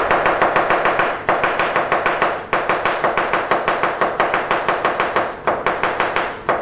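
Freshly sharpened chef's knife chopping rapidly on a cutting board, about seven quick strokes a second, in runs broken by brief pauses.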